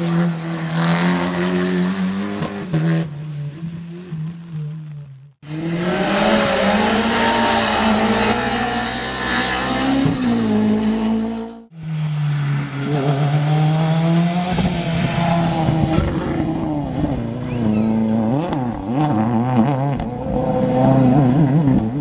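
Rally car engines revving hard as the cars pass at speed, in three short clips cut one after another; the pitch climbs and drops with each gear change. The sound stops abruptly at each cut.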